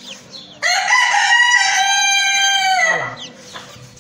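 A rooster crows once: a single long crow that starts just over half a second in, holds for about two seconds, then drops in pitch and fades. Faint peeping of young chicks sits around it.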